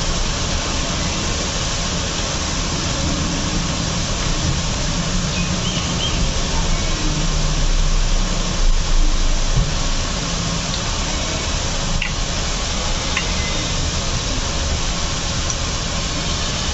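Boondi (drops of gram-flour batter) sizzling steadily as they deep-fry in hot oil in a kadhai, a dense crackling hiss, with a couple of faint clicks late on.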